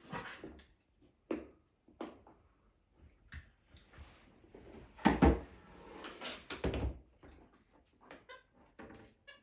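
Capuchin monkeys rummaging with toys: irregular knocks, rustling and clatter, with two louder thumps about halfway through.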